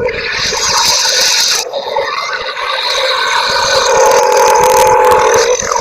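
Long, exaggerated cartoon burps: a first belch that breaks off just under two seconds in, then a second, longer belch that runs on for about four seconds before cutting off near the end.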